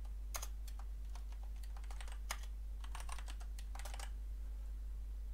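Computer keyboard typing: a run of quick, irregular keystrokes that stops about four seconds in, over a steady low hum.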